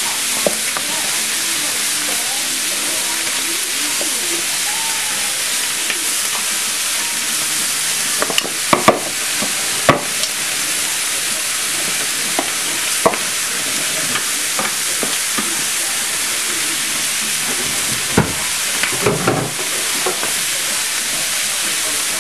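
Chicken thighs frying skin side down in a hot pan, their fat rendering with a steady sizzle and some grease spatter, broken now and then by sharp clicks of metal tongs against the pan.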